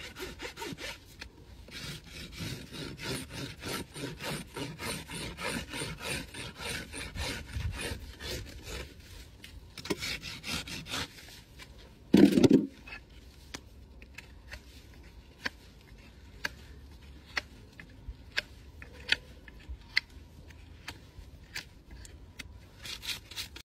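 Farrier's hoof rasp filed in rhythmic strokes across a Shire horse's hind hoof. About halfway through comes one loud thump, followed by scattered sharp clicks and a few more rasp strokes near the end.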